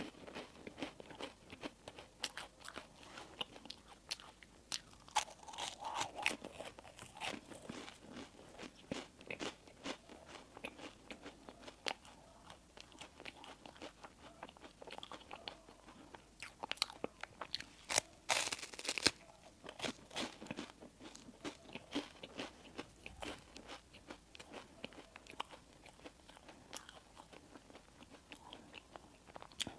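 Close-miked eating sounds: biting and chewing bakery bread and pastry, with many small mouth clicks throughout and a louder, sharper bite about eighteen seconds in.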